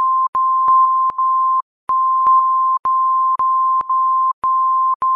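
A steady, high censor bleep tone, broken by several short gaps with clicks where the edits join; the longest gap comes about a second and a half in. It masks speech giving someone's phone number and address.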